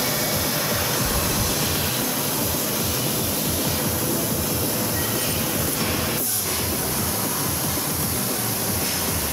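CNC laser cutting head cutting through metal plate: a steady hiss from the cutting and its gas jet, with a brief dip a little over six seconds in.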